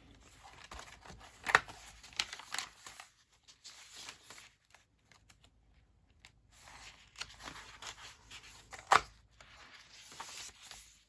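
Paper pages and tucked-in papers of a handmade junk journal rustling as they are handled and turned, with a few sharp paper snaps, the loudest near the end.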